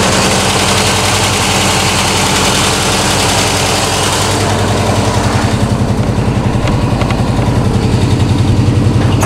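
A 1965 car's carbureted engine idling, with a steady, regular pulsing beat. A hiss over the engine drops away about four and a half seconds in.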